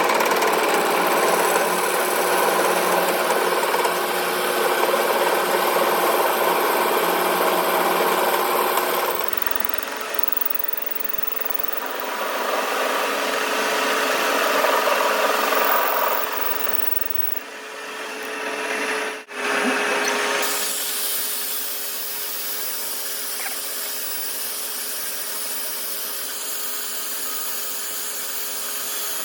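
Workshop power tools running steadily, with the machine sound changing at cuts about nine seconds in and again after a brief gap near twenty seconds.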